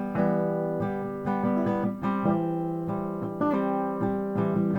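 Acoustic guitar strummed in a steady rhythm, chords struck about twice a second, playing a song's opening before the vocal comes in.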